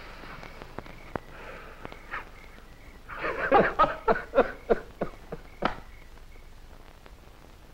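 Men laughing heartily: a run of short rhythmic laughs starting about three seconds in and dying away before six seconds.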